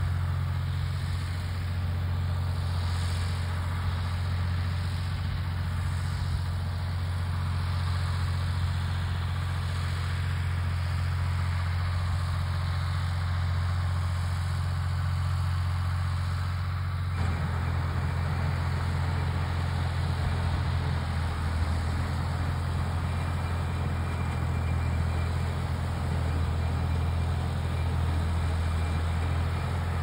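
Farm tractor engine running steadily as it pulls a John Deere 410 round baler: a constant low engine hum. About two-thirds of the way through, the higher background noise changes abruptly.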